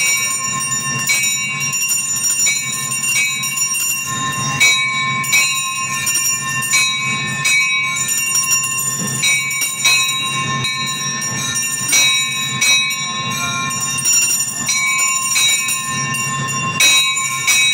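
Temple bells ringing without pause during puja, struck again and again about once a second with their metallic tones ringing on between strikes, over a low pulsing throb.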